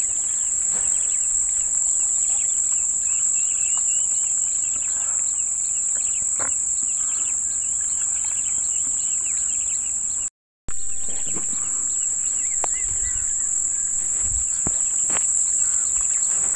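Steady, high-pitched chorus of insects, with a rapid run of short chirps through the first half. The sound cuts out completely for a split second about ten seconds in.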